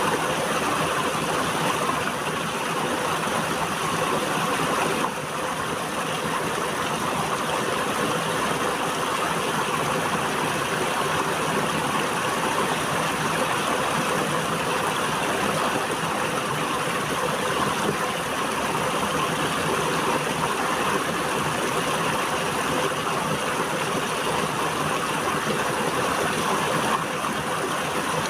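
River water flowing, a steady rushing sound that dips briefly about five seconds in.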